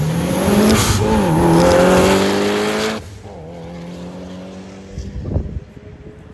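A car accelerating hard away, its engine note rising through a gear change about a second in, then dropping off suddenly about three seconds in as the driver lifts off, leaving a quieter steady engine note; a short bang near the end.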